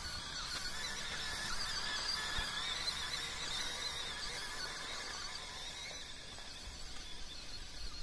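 Whine of an MN99S 1/12-scale RC crawler's electric motor and geared drivetrain as it crawls over rock, high-pitched and wavering in pitch with the throttle.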